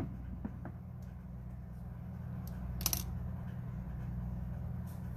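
Hairstyling tools being handled: a few light clicks, with a sharper double click about three seconds in, over a steady low hum.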